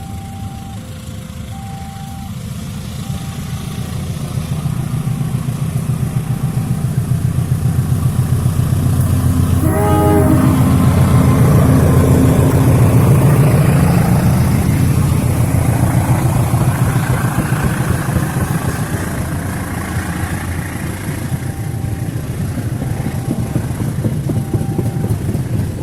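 KAI CC206 diesel-electric locomotive hauling a passenger train past, its engine rumble building to a peak about ten to fourteen seconds in and then easing. A short horn toot sounds about ten seconds in. A level-crossing warning signal beeps in two alternating tones at the start and again near the end.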